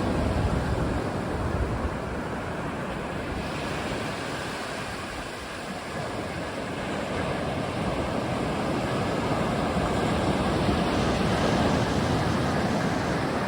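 Ocean surf washing onto the shore as a steady rush of noise that eases about five seconds in and swells again toward the end, with wind buffeting the microphone.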